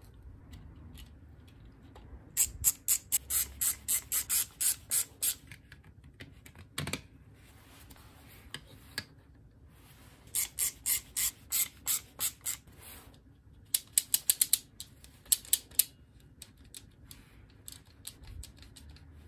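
Plastic ratchet and pawl of a 3D-printed mechanical timer clicking in three quick runs of evenly spaced clicks, about four or five a second, each lasting two to three seconds, with a single knock in between.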